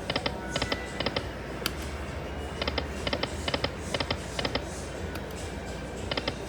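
Aristocrat Lightning Link video slot machine spinning, its reel-stop sounds coming as little clusters of quick clicks about once a second, with a gap in the middle.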